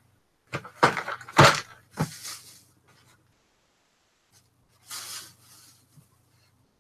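Plastic bag rustling and crinkling as it is handled, in a cluster of sharp bursts with a thump among them, then a shorter rustle about five seconds in.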